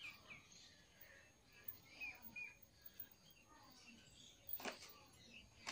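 Faint, scattered bird chirps against quiet background, with a brief rustle near the end.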